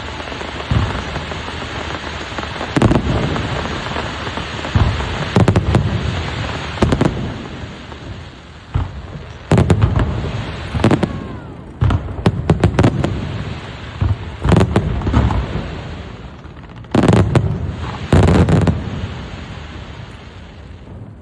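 Aerial fireworks going off: loud bangs come one at a time and in quick clusters, each trailing off in a low rumble. They stop about two seconds before the end, leaving the sound to fade.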